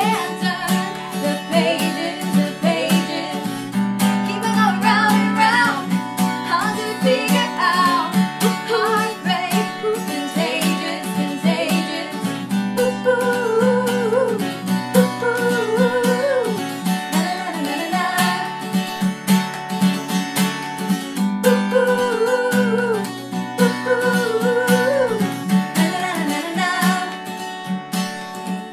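An acoustic guitar strummed in a steady rhythm, accompanying a woman singing lead with a second woman's voice singing harmony.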